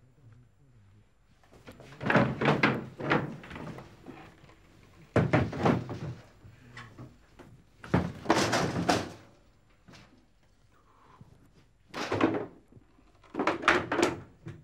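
Cupboard doors and drawers being pulled open and banged shut and furniture being knocked about during a search. There are five separate bangs and clatters, each about a second long, with quiet between them.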